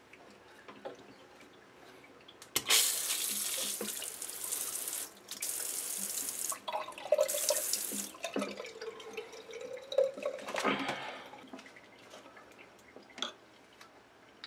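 Handheld bidet sprayer squeezed on and off in a test: water sprays out in three loud bursts with short breaks between them. A softer spell with a faint wavering tone follows, then one last short burst.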